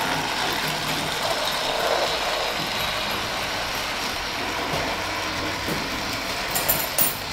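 Battery-powered toy train set running on its plastic track: a steady mechanical running sound, with a few sharp clicks near the end.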